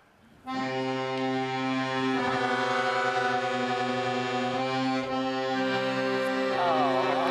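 Accordion playing sustained chords, starting about half a second in, with a quick wavering run of notes near the end.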